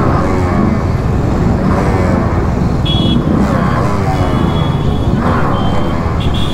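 Yamaha RX135's two-stroke single-cylinder engine running at low speed close up, revs rising and falling, among other motorcycles moving slowly around it. Several short high horn beeps sound from about three seconds in.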